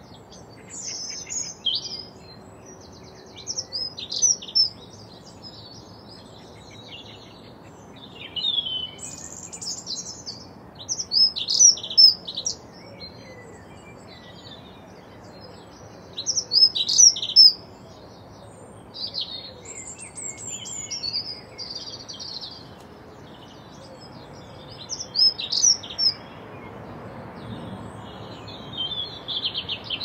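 Songbirds singing in short bursts of high, varied chirps and whistles, one phrase every few seconds, over faint steady background noise.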